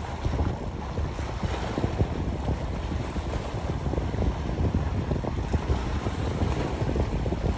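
Wind buffeting the microphone, with sea waves washing against rocks beneath it.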